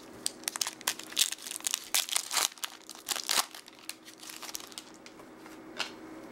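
Crinkling of a baseball card pack wrapper being handled: a dense run of sharp crackles over the first three and a half seconds, then a few scattered ones.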